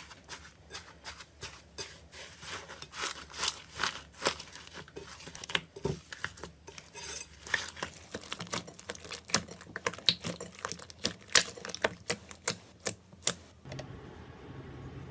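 Slime being squeezed and worked by hand, with rapid, irregular sharp clicks and pops. Near the end the clicking stops and a steady low hum is left.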